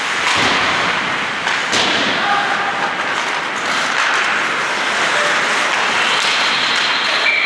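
Ice hockey play in a rink: two sharp knocks, about a third of a second and just under two seconds in, over a steady hiss.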